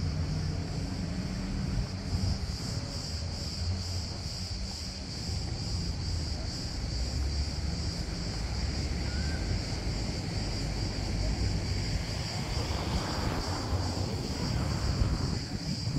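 Low, steady drone of a motorized watercraft's engine across the water, with wind on the microphone. A rushing noise swells near the end.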